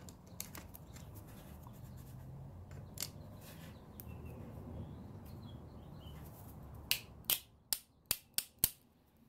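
Small metal lock pins and springs from a disassembled lock core being handled: faint rubbing and scattered ticks, then a quick run of six or seven sharp little clicks near the end.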